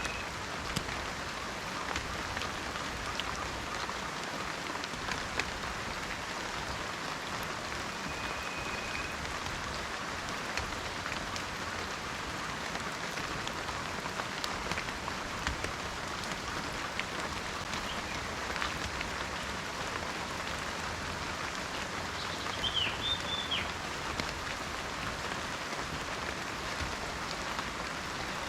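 Steady rain falling in a forest, a continuous hiss dotted with many individual drop ticks. A bird gives a short high whistle about eight seconds in and a few quick chirps near the end.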